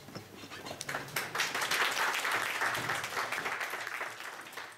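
Audience applauding: clapping swells about a second in, holds, then thins out near the end.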